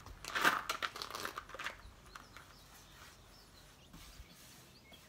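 Rustling and crunching with a run of clicks for about a second and a half, then a faint low rumble that stops about four seconds in.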